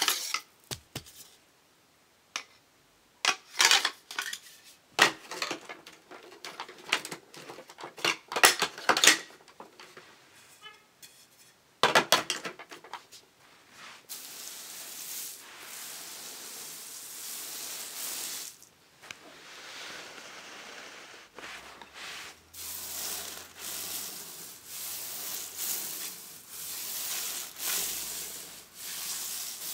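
Dry crumbly debris being handled and spread by hand over carpet. First come sharp rattling clicks. Then, from about halfway, a steady scratchy rubbing swells and fades about once a second as the bits are pushed across the pile.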